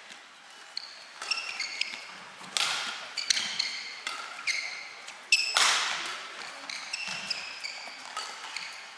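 Badminton rally in an arena: sharp racket strikes on the shuttlecock and short, high squeaks of shoes on the court, echoing in the hall. It starts about a second in, and the loudest hit comes about halfway through.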